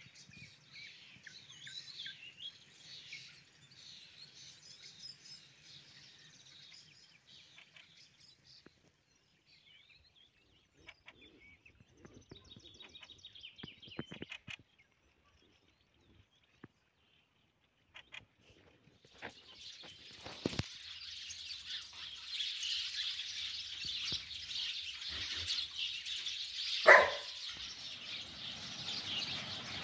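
Small songbirds chirping and twittering in trees. It starts as scattered calls, then from about two-thirds of the way in becomes a dense flock chattering. One short, much louder call stands out near the end.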